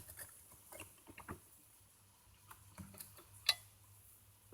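Faint, scattered metal clicks and light taps as an old garden hoe is clamped into a vise, with one sharper click about three and a half seconds in.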